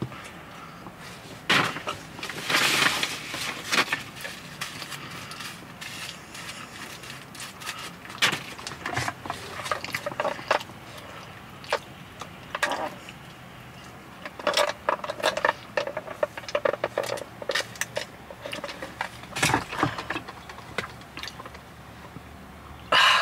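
Close-miked eating sounds: a person chewing and swallowing a mouthful of Quarter Pounder, with scattered wet mouth clicks and occasional rustles.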